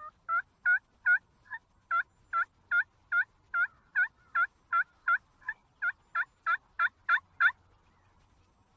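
Turkey yelping: a long run of about twenty short yelps, evenly spaced at nearly three a second, loudest near the end.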